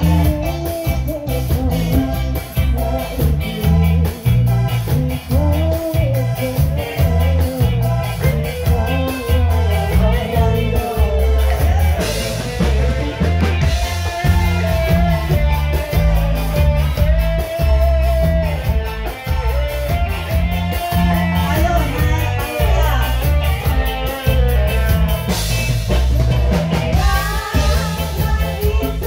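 Live band playing a dangdut koplo song through stage loudspeakers, with drums and a heavy pulsing bass under singing into microphones; cymbal swells come in twice.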